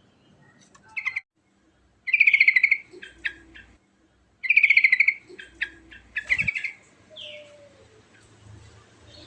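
Yellow-vented bulbul (trucukan) singing in short bursts of rapid chattering trills, about four bursts with gaps between them. There is a low thump about six seconds in.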